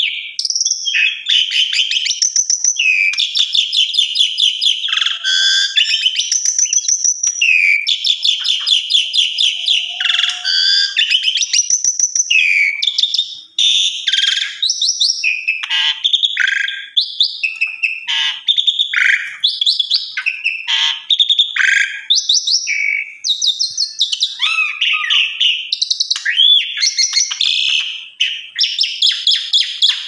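Asian pied starling (jalak suren) singing at length: a loud, nearly unbroken string of varied phrases, with rapid chattering rattles, whistled notes and squeaky glides. This is the bird running through its repertoire of learned phrases ("bongkar isian"), with only brief breaks about a third of the way in and near the end.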